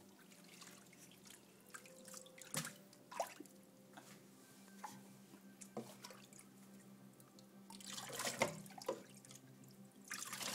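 Water splashing and dripping in a stainless steel sink as a small dog is bathed, with a louder run of splashing about eight seconds in.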